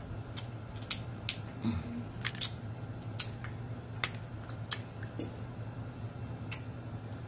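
Irregular sharp clicks and crackles, a dozen or so, from boiled shrimp being peeled by hand and eaten at the table, over a steady low hum.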